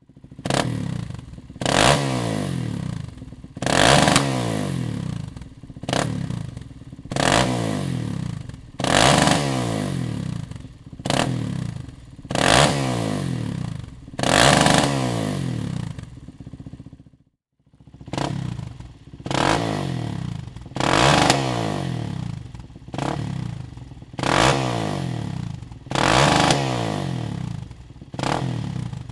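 A 2005 Suzuki LTZ 400 quad's single-cylinder four-stroke engine through a Dominator aftermarket exhaust, revved in quick sharp blips that fall back after each one, roughly one every couple of seconds. About two-thirds of the way through the sound stops briefly and the revving starts again.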